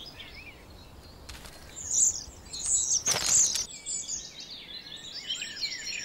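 Common starling singing: a varied run of high whistles and chirps, with a short harsh noisy burst about three seconds in.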